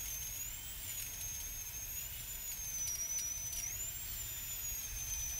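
Dentist's drill sound effect: a steady, high-pitched whine that wavers slightly up and down in pitch.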